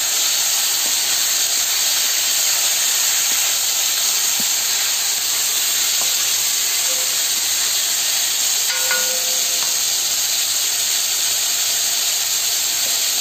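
Broccoli, onion and tomato sizzling steadily in hot oil in a kadai as they are sautéed, stirred with a wooden spatula.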